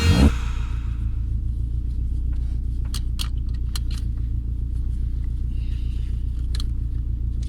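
Volvo 480 Turbo's 1.7-litre turbocharged four-cylinder engine running steadily with a low drone, with a few light clicks over it.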